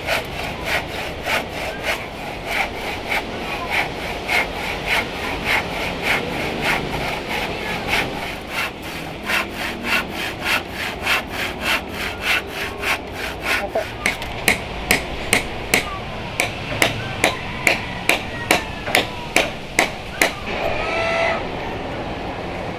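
Handsaw cutting through a weathered wooden plank in steady back-and-forth strokes, about two a second, quickening to about three a second before stopping about twenty seconds in.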